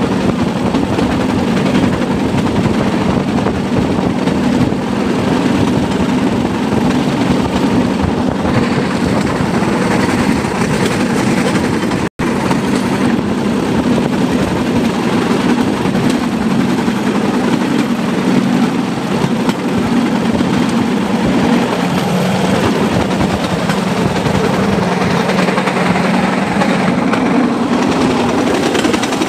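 Bamboo train (norry) running along the rails: its small engine runs steadily under the rattle and clatter of the wheels on the track. The sound drops out for an instant about twelve seconds in.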